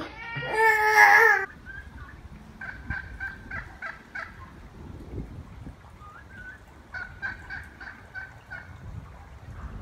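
A kitten's loud cry, cut off about a second and a half in, then wild turkeys gobbling in two bouts of rapid rattling calls, about three and about seven seconds in.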